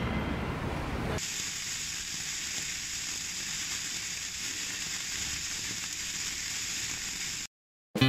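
Sparklers burning with a steady fizzing hiss that starts about a second in and cuts off suddenly near the end.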